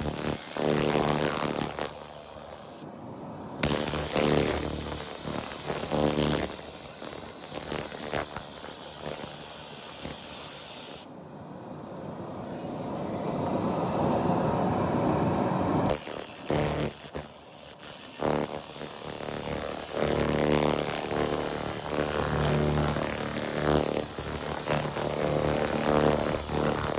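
Laser cleaning machine buzzing with a crackle as its beam ablates grime from the surface of a brick. The laser stops a few times, once for several seconds in the middle, when only a lower hum remains.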